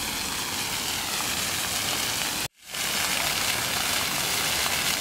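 Fountain water splashing: a steady rushing hiss, with a brief dropout about halfway through where the recording cuts.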